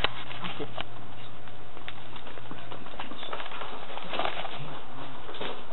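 Steady rustling handling noise from a covered camera's microphone rubbing against fabric, with a few sharp clicks. Faint muffled voices come through about four seconds in.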